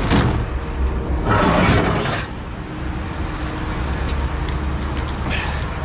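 Recovery truck's diesel engine running steadily with a low rumble. A harsh burst of noise comes about a second and a half in, and a few sharp knocks follow near the end.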